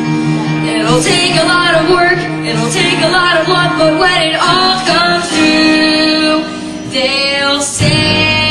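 Young stage cast singing a musical-theatre number live over instrumental accompaniment. Near the end the sound dips briefly, then the accompaniment comes back fuller and lower.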